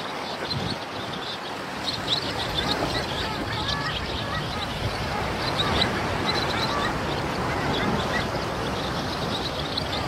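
A flock of long-tailed ducks calling, many short overlapping calls over a steady wash of sea water.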